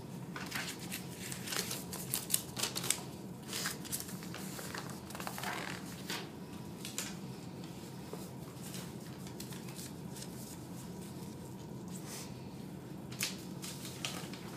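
Paper sheets and paper cutouts being handled, shuffled and laid in place: a run of rustles and soft taps through the first seven seconds, then a few more near the end.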